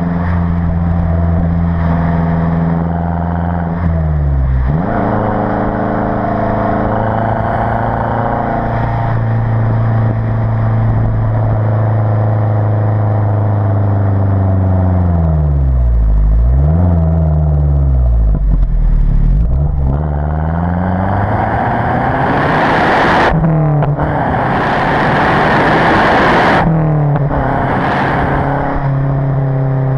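Stock exhaust of a Mazda 3 MPS with its 2.3-litre turbocharged four-cylinder, heard right at the tailpipe while driving. The engine note falls and rises several times with throttle and gear changes. Near the end, under harder acceleration at higher revs, it turns into a loud windrush sound of exhaust flow, broken twice by brief gaps.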